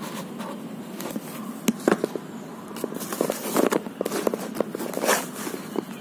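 Irregular clicks, knocks and rustling of objects being handled on a newspaper-covered table, with a few sharper clicks about two seconds in and louder rustles near the middle and end.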